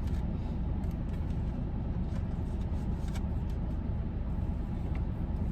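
Steady low hum of a car heard from inside the cabin, with a few faint clicks and rustles of handling.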